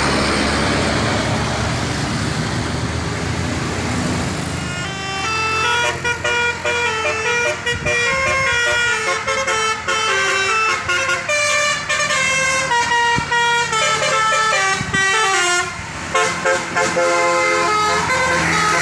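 Bus engine and road noise, then from about five seconds in a Basuri multi-tone 'telolet' bus horn playing a tune of quick notes stepping up and down, until near the end.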